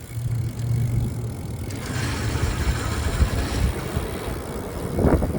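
Rear hub motor of a Lectric e-bike making an abnormal noise while riding at low speed on throttle alone: a steady low hum at first, then a rougher rumble. The noise is the sign of a fault in the motor that needs a replacement part under warranty.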